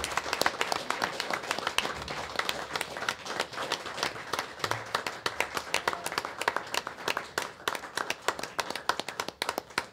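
Applause from a small group of people clapping steadily.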